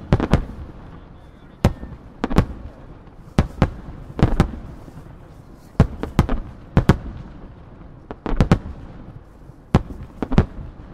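Aerial firework shells bursting in a rapid-fire starmine sequence: sharp bangs come irregularly, about one to two a second and often in close pairs, each followed by a short echoing tail.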